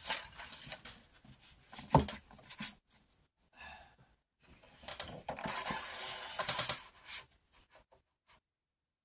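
Cardstock being cut and handled: scraping, rustling cutting strokes with a sharp knock about two seconds in. A second run of cutting comes about five to seven seconds in, then a few light clicks.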